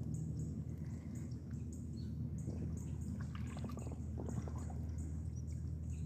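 Kayak paddle strokes splashing and dripping water, clustered in the middle, over a steady low hum. A faint high chirp repeats about twice a second throughout.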